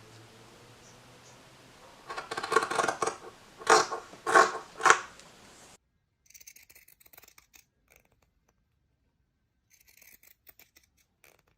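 Scissors cutting cotton fabric: four or five loud snips close together about two seconds in, then fainter, scattered snips after the background drops away.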